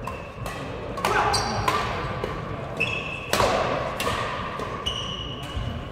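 Badminton rackets hitting a shuttlecock in a fast rally, a series of sharp cracks with the hall's echo after each. Short high squeaks, from court shoes on the wooden floor, come in between the hits.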